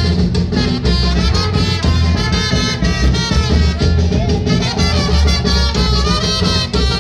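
Loud Latin dance music with a heavy, pulsing bass beat.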